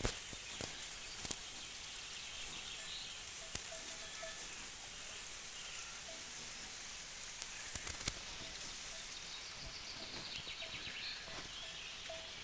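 Steady rain hiss with scattered drips, under birds calling: a short note repeated every half second or so, with fainter higher chirps.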